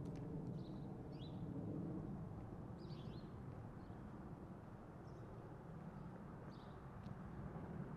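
Faint outdoor ambience: a low, steady rumble of distant traffic, a little louder in the first two seconds, with short bird chirps every second or two.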